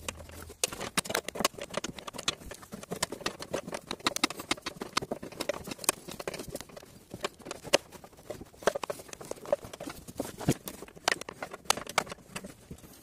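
Ratchet wrench clicking in quick, irregular runs, with small metal knocks, as a socket is worked on the headlight mounting bolts to loosen them.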